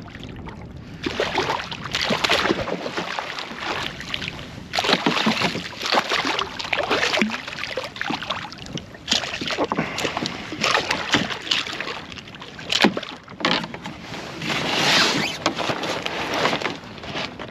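A hooked bluefish splashing and thrashing at the surface beside a canoe as it is brought in, in irregular bursts of splashing.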